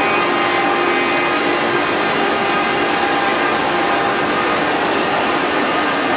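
HG-1530 CNC router's spindle running as it routs curved grooves into a wooden door panel: a steady whine in several pitches over the rushing noise of the cut.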